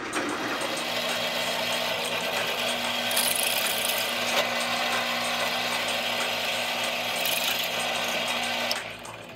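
Drill press running, its twist bit cutting through a steel plate with a steady grinding noise over the motor's hum; it stops near the end.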